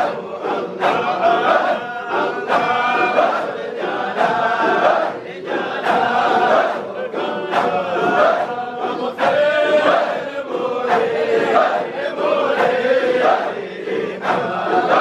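A large crowd of men chanting together in a Sufi dhikr, many voices in a rhythmic, pulsing group chant.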